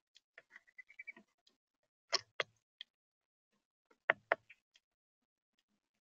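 Sharp taps on the bird feeder, coming in two quick pairs about two seconds apart, with fainter ticking in the first second: a bird pecking at seed on the feeder.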